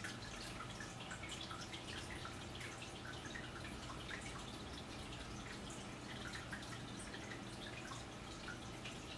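Faint room tone: a low steady hum with many small, irregular ticks.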